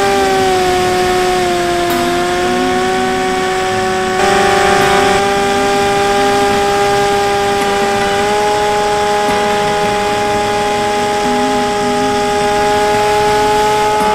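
Electric motor and propeller of a Bixler 3 RC plane in flight, heard from a camera under the wing: a steady whine whose pitch sags slightly in the first two seconds, then steps up about four seconds in and again about eight seconds in as the throttle changes, over a hiss of rushing air.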